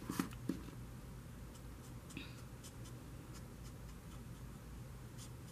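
Felt-type marker tip dabbing and dotting on stamped paper, faint scattered taps with a few sharper clicks right at the start.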